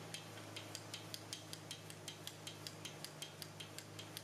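Hand ratchet clicking steadily, about five clicks a second, as it backs out a brake caliper bracket bolt, over a low steady hum.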